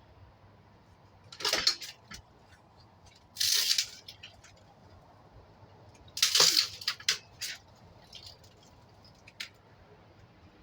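Ceiling fan being broken apart by hand: three loud, short cracking noises about two to three seconds apart, with smaller clicks and knocks between them.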